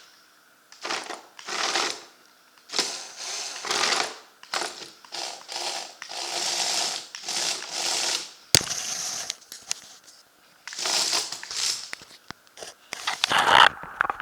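Lego Technic robot's electric motors and plastic gearing running in short stop-start bursts, with plastic parts clattering and a sharp click a little past halfway.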